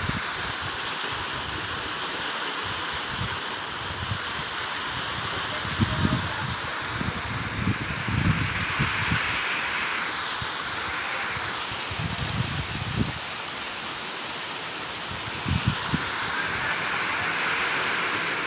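Heavy rainstorm: a steady downpour falling, with a few short low thuds scattered through it.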